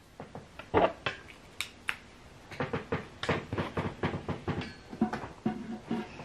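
Close-up handling noise: scattered clicks, taps and knocks from a phone or camera and its charging cable being handled and plugged in, coming thicker in the second half.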